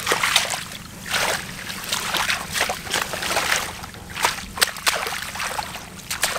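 Shallow water sloshing and splashing in a run of irregular splashes, as someone gropes through it by hand to catch fish.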